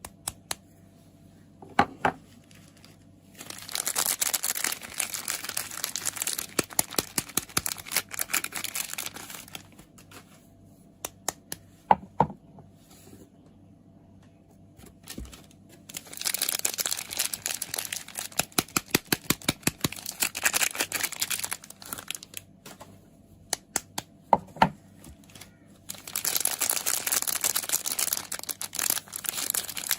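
Crisp soap packaging crinkling and being unwrapped in three long stretches, with quick sharp taps on it. Single louder taps come about two seconds in, near the middle and a few seconds before the end.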